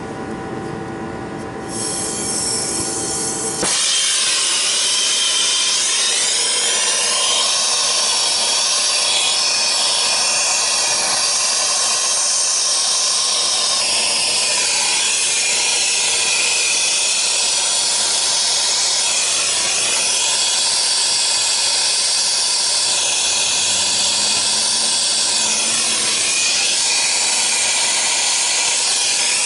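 Brazing torch flame hissing steadily as copper refrigerant line joints at a compressor are brazed. The hiss comes up in two steps over the first few seconds, then holds.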